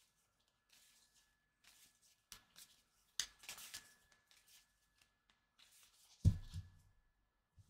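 A deck of tarot cards being shuffled by hand: cards sliding and rustling against each other in short bursts, with a sharp click about three seconds in and a dull thump a little after six seconds.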